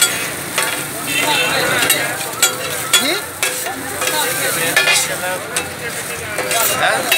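Metal spatulas clacking and scraping against a flat steel griddle as cooked chicken is chopped and pushed into a pile, with irregular sharp strikes over the sizzle of the frying meat.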